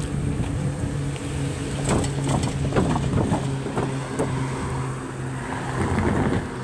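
Motor vehicle engine running with a steady low hum, with a series of short falling-pitch sounds and clicks about two to three seconds in.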